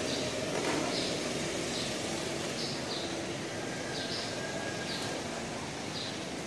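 Steady outdoor background noise with a small bird chirping over it, short high chirps about once a second.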